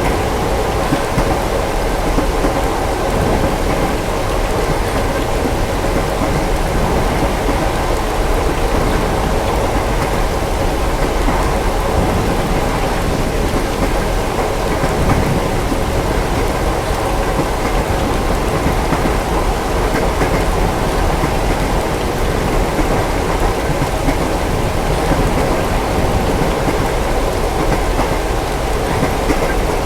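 Steady rain with a constant low rumble beneath it: a mixed ambience of rain on a train window, a moving train and distant thunder, with no single strike or wheel-clack standing out.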